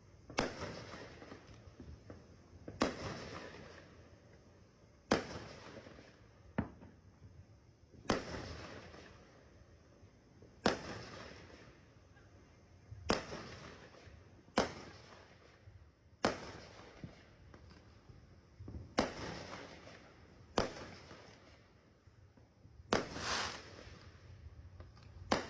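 Aerial fireworks shells bursting: about a dozen sharp bangs, a second or two apart, each followed by a long fading rumble of echo. Near the end one burst runs on as a longer crackle.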